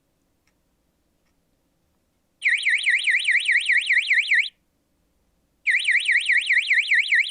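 Optris camera alarm signal indicator sounding an electronic alarm, the sign that a set temperature has been exceeded. It comes in two loud bursts of about two seconds each, starting about two and a half seconds in: a fast warbling tone sweeping up and down about five times a second.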